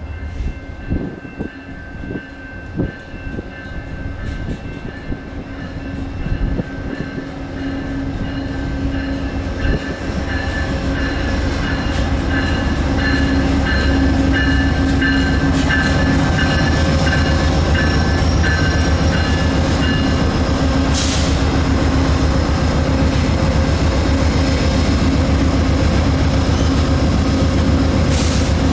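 VIA Rail GE P42DC diesel locomotive running in along the station track with its passenger train, its engine hum growing louder over the first half and then holding steady as it comes close. Brief hissing sounds about 21 seconds in and again near the end.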